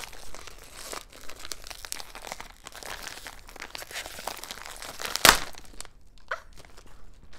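A clear plastic packaging bag crinkling and rustling as it is handled and pulled open, with one sharp snap about five seconds in. The crinkling dies down a second later.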